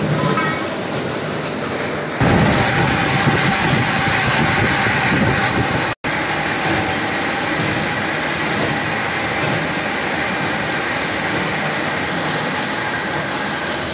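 Vertical milling machine cutting metal blocks: a steady machining noise with a high, squealing whine that grows louder about two seconds in as the cutter bites. The sound cuts out for an instant at about six seconds, then carries on unchanged.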